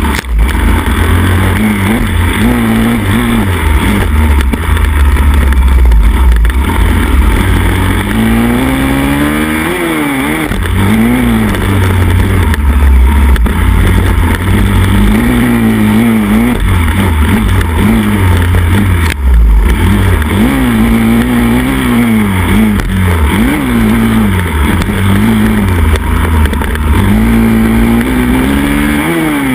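Pit bike's small four-stroke single-cylinder engine, heard up close from the handlebars, revving hard and easing off over and over as it is raced on a dirt track. The engine note climbs and drops every second or two, with the odd knock from the bike hitting bumps and one sharp jolt a little past halfway.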